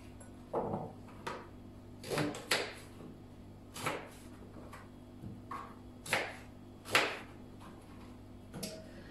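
Kitchen knife cutting raw pumpkin into cubes on a plastic cutting board: a series of irregular knocks, roughly one a second, the loudest about seven seconds in.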